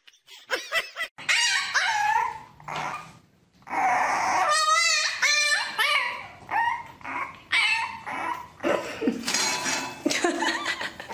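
Dogs vocalizing in a run of short pitched whines, yips and barks, some of them wavering.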